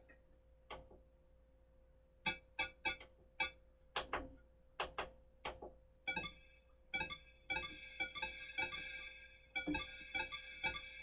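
Arturia MiniFreak synthesizer playing short plucked, keyboard-like notes with sharp attacks and quick decays: sparse at first, then a quicker, brighter run of notes from about six seconds in, with a held layer beneath near the end.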